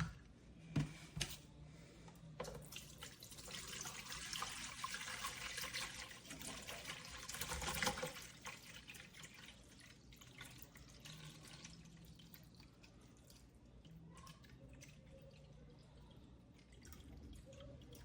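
Distilled water being poured into the top-fill tank of a Dreo HM311 ultrasonic humidifier, a steady pour that builds from about two seconds in and stops at about eight seconds, followed by faint drips and handling sounds.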